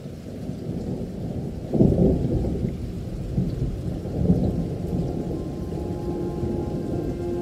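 Thunder rumbling over rain, with louder rolls about two seconds and four seconds in. Near the end a held musical note begins to come in.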